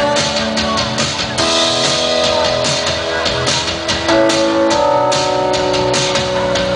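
Band music: guitar chords over a drum kit, with the chords changing about a second and a half in and again around four seconds in.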